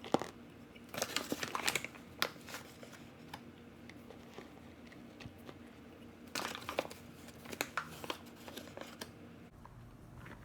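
Crinkling and rustling with sharp light clicks, in two spells (about a second in, and again from about six to nine seconds in), as flour is handled and measured out into a mixing bowl.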